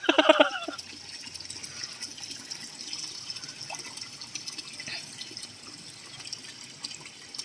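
Steady sound of running water, with a brief voice trailing off at the very start.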